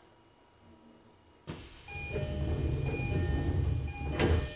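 Train noise heard from aboard a Tokyo Metro 10000 series carriage: after a quiet start, a sudden loud rush with a deep rumble sets in, lasts about three seconds and ends in a sharp thump before fading.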